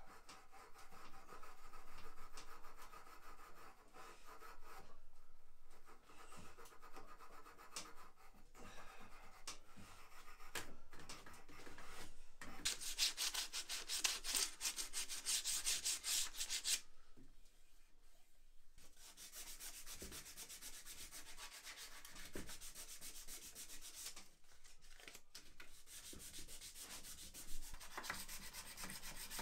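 Hand sanding of old, worn wooden chair parts: abrasive rubbed back and forth over the wood in quick, scratchy strokes, louder and brighter for a few seconds around the middle.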